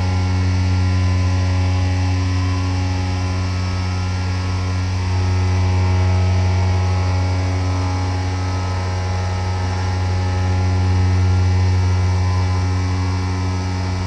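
Epoxy granite vertical CNC mill cutting metal under flood coolant: a steady, strong low hum with many even tones stacked above it, over the hiss of coolant spraying onto the work.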